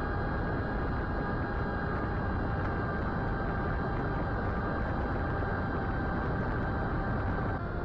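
Brushless motor and 8x4.5 propeller of a small fixed-wing FPV plane whining steadily in flight, heard from the onboard camera under heavy wind rush. Near the end the whine steps slightly lower in pitch.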